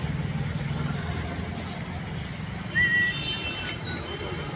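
Low, steady rumble of an engine idling, with a couple of light metallic clinks from gearbox parts being handled about three seconds in.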